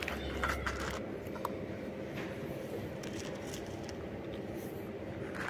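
A cat crunching dry kibble: scattered small crunches and clicks over a steady low background hum, with a brief low rumble in the first second.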